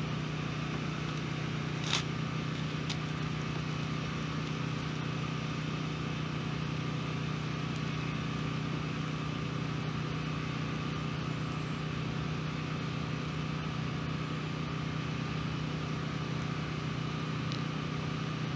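Steady machine hum with a low drone that does not change, and a single click about two seconds in.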